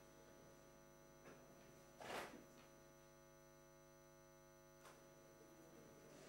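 Near silence: a steady electrical mains hum, with a short noisy burst about two seconds in and a couple of faint clicks.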